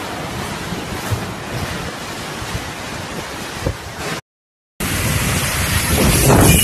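Strong whirlwind wind blowing in a steady rush, broken by a moment of dead silence about four seconds in, then back louder with wind buffeting the microphone.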